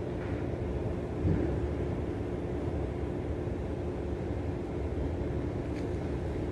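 An engine running steadily, a low rumble with a steady hum, and a single thump about a second and a half in.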